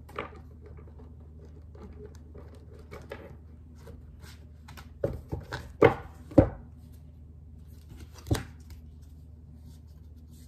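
A deck of tarot cards being handled, shuffled and knocked on a wooden table: scattered light card rustles, then a cluster of sharp knocks about halfway through and one more a little later. A low steady hum runs underneath.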